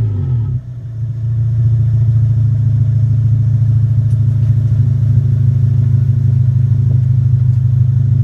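Engine exhaust settling from a rev back down to idle in the first second, then idling steadily with a deep, even note.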